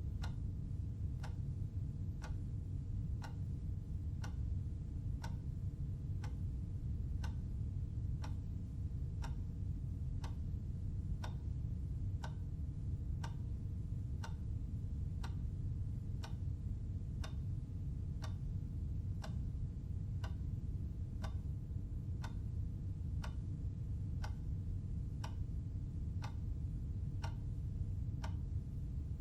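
Clock ticking steadily, about one tick a second, over a steady low hum.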